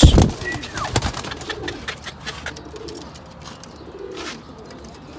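Domestic pigeons cooing softly, with a heavy thump at the very start and a few sharp clicks.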